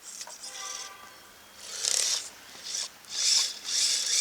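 Kyosho Blizzard RC snowcat's tracks grinding and rasping through fresh snow in several bursts, with a short steady whine near the start. Snow packing into the tracks is catching them up.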